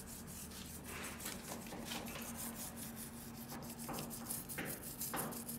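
A toothbrush scrubbing a rusty motorcycle chain and sprocket wet with petrol and dish soap, in quick rubbing strokes with a few louder swishes, loosening the rust.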